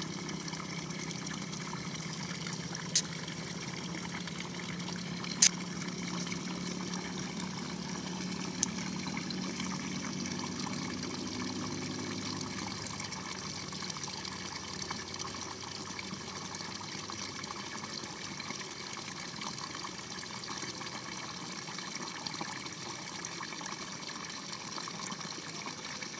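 Steady trickling water, with three short sharp clicks in the first third, the second the loudest, and a low hum that fades out about halfway.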